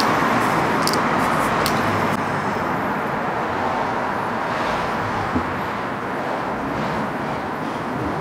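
Two short spritzes from a trigger spray bottle of quick detailer, about one and two seconds in, over a steady rushing background noise.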